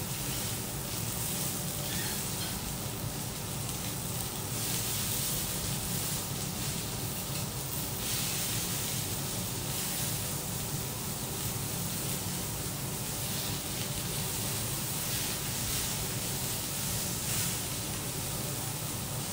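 Cubes of wagyu steak sizzling on a hot steel teppanyaki griddle as they are cut and turned. The sizzle swells and eases, with a steady low hum beneath.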